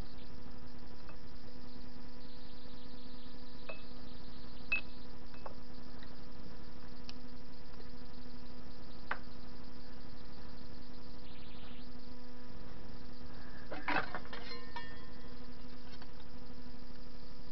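A Soviet TV-16 lathe runs with a steady motor hum, broken by a few light metallic clicks. About three-quarters of the way through comes a short rattle of clinking, ringing metal.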